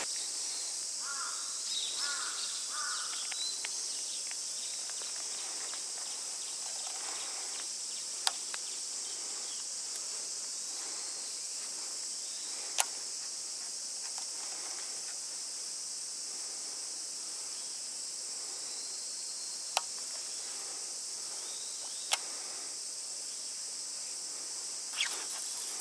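Steady high-pitched insect chorus of midsummer, an unbroken buzz, with a few sharp clicks from handling fishing tackle scattered through it.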